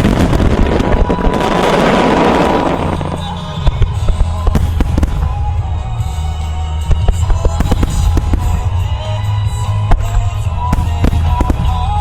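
Aerial fireworks bursting over show music: a dense crackling wash for the first three seconds or so, then a run of sharp separate bangs.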